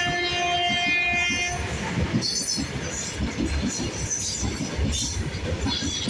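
WAG-9 electric locomotive's horn sounding a steady chord that cuts off about a second and a half in, followed by the rumble and clatter of a goods train's wagons passing.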